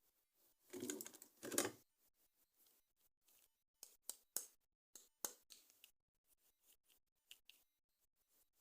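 Plastic toy parts and packaging being handled during an unboxing: two short rustling bursts about a second in, then a scatter of sharp clicks and faint ticks.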